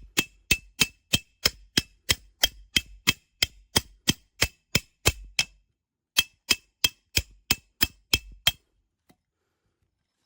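Peg hammer striking a steel tent peg in quick, even metal-on-metal blows, about three a second, each with a short ringing note. One run of about seventeen blows, a short pause, then about eight more, then it stops.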